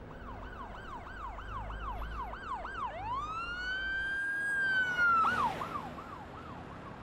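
Police car siren. It gives quick rising-and-falling whoops, about three or four a second. About three seconds in it switches to one long rise held steady for two seconds, then goes back to quick whoops that fade near the end.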